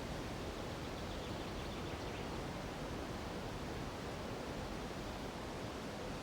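Steady rushing of a nearby mountain river mixed with wind through the treetops, an even, unbroken wash of noise.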